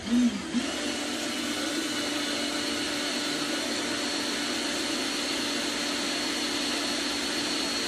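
Electric motor of a power tool or vacuum starting up and then running steadily, an even whir with a high whine.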